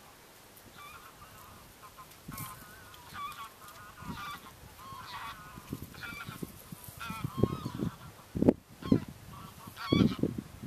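Geese honking repeatedly in short calls, with close, low crunching thumps that grow louder in the second half as a Highland cow tears at and chews a bush.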